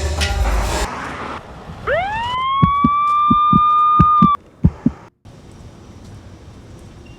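A siren-like whine sweeps up in pitch over about half a second, holds one steady note for about two seconds, then cuts off suddenly, with a series of dull low thumps under it and just after it.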